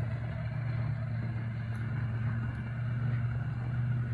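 Pickup truck engine running at low speed while towing a snowmobile on a rope, a steady low hum.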